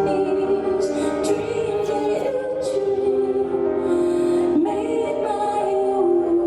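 Music with a singing voice holding long, slow notes.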